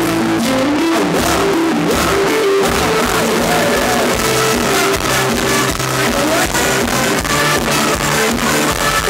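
Live band playing Thai ramwong dance music, loud, with electric guitar over a steady beat.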